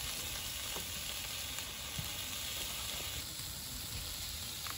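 Onions frying in a hot pan: a steady sizzle with a few small crackles.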